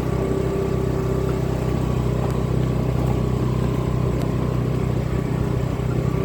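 A vehicle's engine running at a steady speed, a constant hum that does not rise or fall.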